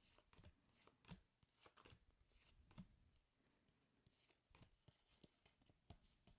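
Faint, irregular clicks and rustles of Pokémon trading cards being handled and flicked through one by one.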